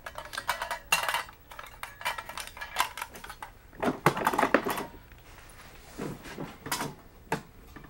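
Irregular clatter and knocks of film lighting gear being handled in a hard equipment case: a small Fresnel light set down and metal fixtures, connectors and cables shifted about, with denser bursts of clattering about a second in and again around four seconds.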